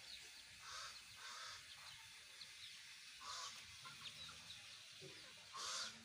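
Faint peeping of young local chickens foraging, with a few short, slightly louder bird calls scattered through.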